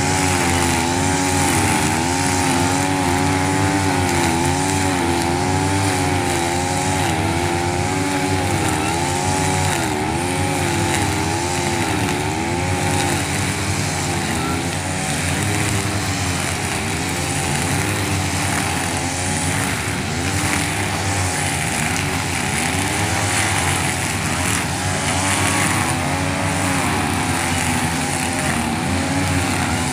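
Two-stroke engines of 42cc backpack brush cutters running at cutting speed, their nylon trimmer line cutting grass. The engine pitch wavers up and down continually as throttle and load change, with more than one machine running at once.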